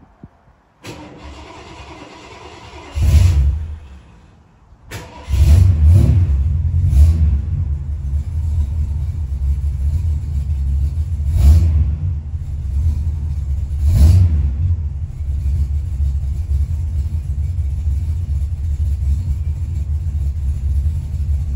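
1979 Lincoln Continental's 460 V8 being started: it cranks for about two seconds, fires briefly and dies, then catches about five seconds in and keeps running. It is blipped four times before settling into a steady idle.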